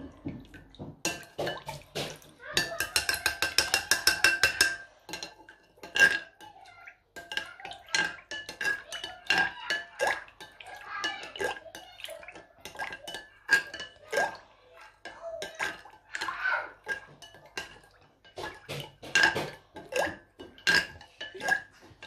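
Metal spoon stirring liquid jelly mix in a glass bowl, clinking and scraping against the glass with a soft slosh. A fast run of clinks comes about three to five seconds in.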